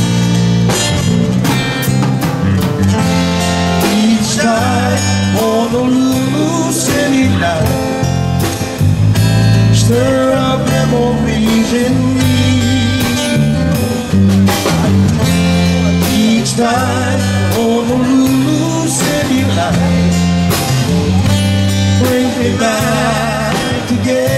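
A band playing a song: a man singing with vibrato over acoustic guitar, bass guitar and drums.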